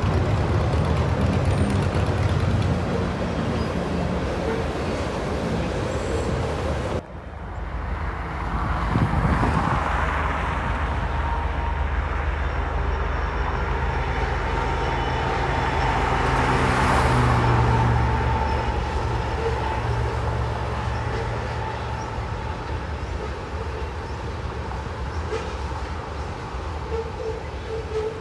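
Freight train rolling across a high railway bridge: a steady rumble of wheels on rails. It breaks off suddenly about a quarter of the way in. A diesel locomotive in Canadian Pacific heritage paint then runs past with a low engine hum, loudest around the middle, and is followed by tank cars rolling over the bridge.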